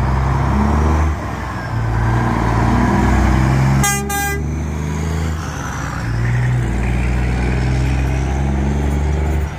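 Diesel semi-truck tractor-trailers pulling away and driving past close by, their engines running loud and deep. One short horn blast about four seconds in.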